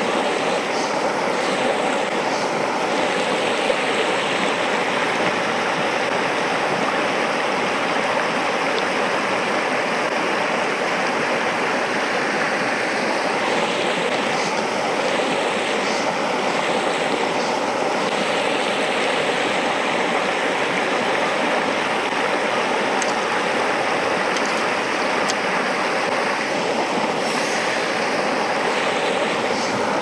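Shallow mountain stream flowing over stones: a steady, even rush of water.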